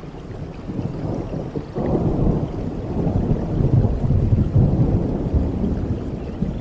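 Low rolling rumble of thunder that swells about two seconds in and slowly fades, with a soft rain-like hiss beneath.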